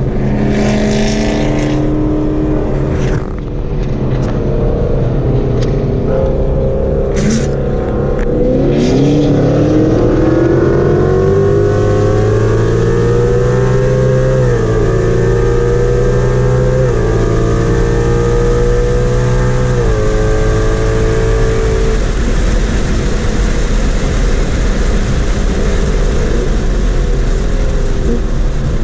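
Naturally aspirated car with a 10R80 ten-speed automatic, heard from inside the cabin. It cruises at first, then goes to full throttle about eight seconds in. The engine note climbs through three quick upshifts, then the driver lifts off past the middle, leaving steady road and wind noise.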